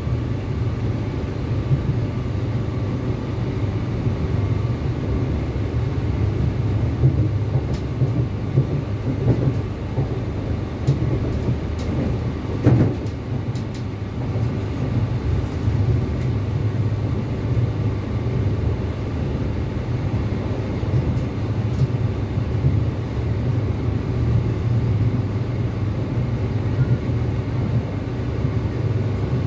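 Cabin sound of a Northern Ireland Railways Class 4000 (C4K) diesel multiple unit under way: a steady low rumble of the underfloor diesel engines and the running gear on the rails. A few light clicks are scattered through it, with one short louder knock about halfway through.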